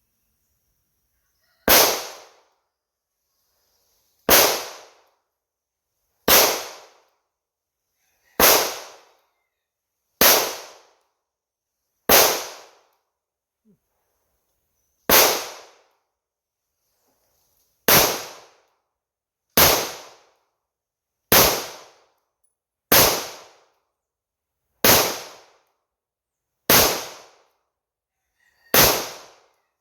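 9mm semi-compact pistol, a Palmetto State Armory Dagger slide on a 3D-printed lower, fired fourteen times in slow, steady single shots about two seconds apart. Each shot is a sharp crack with a short echo trailing off.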